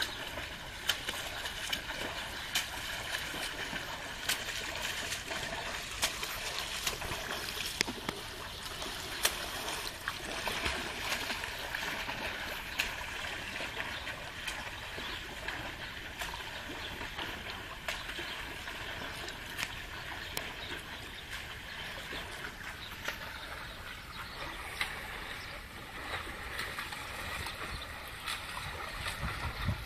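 Water splashing and sloshing in a swimming pool from a swimmer's front crawl strokes, a steady wash of water with frequent short, sharp splashes.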